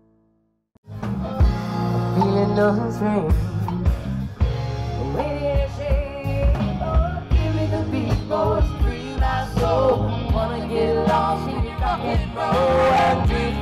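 A live rock band playing with a singer over drums, electric bass and guitar. It starts suddenly about a second in, after a moment of near silence.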